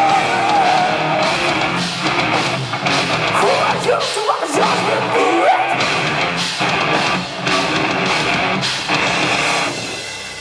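Live rock band playing loud, with distorted electric guitar and drum kit; the sound drops away near the end as the song closes.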